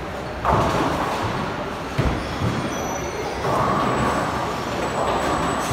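Bowling alley din: bowling balls rumbling down the wooden lanes, with a sharp knock of ball or pins about two seconds in, over background chatter.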